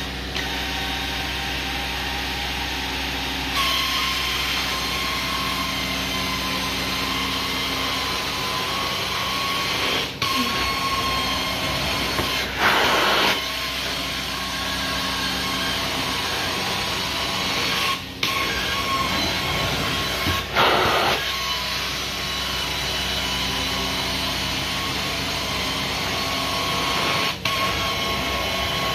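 Carpet-cleaning extraction machine running steadily with a high whine, broken by brief drops every several seconds and two louder hissing surges as the wand works the carpet.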